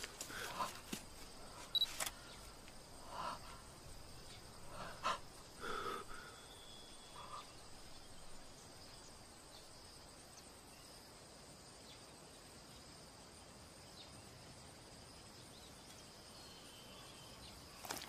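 Quiet jungle ambience with a faint steady high-pitched drone, typical of insects. A few soft clicks and rustles come in the first few seconds, then the scene settles to the steady background.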